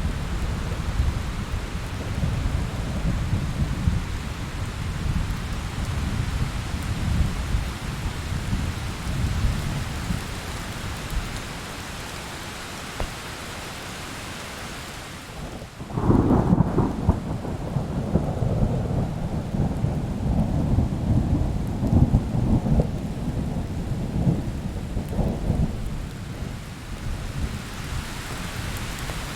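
Thunderstorm: steady rain hiss under long, low rolls of thunder. The rumble dies away about twelve seconds in, then a sudden loud thunderclap about sixteen seconds in sets off another rumble lasting about ten seconds.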